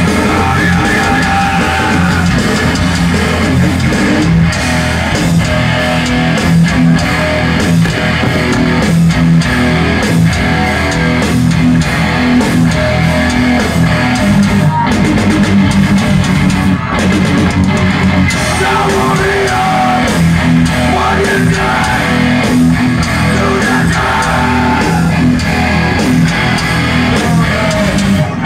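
Live rock band playing loud and continuous, with electric guitars, bass and drums.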